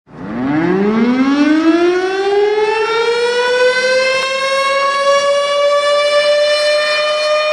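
Mosque siren sounding the Ramadan fasting-time signal, starting up: its wail rises in pitch quickly over the first couple of seconds, then more slowly, and settles into a steady high tone.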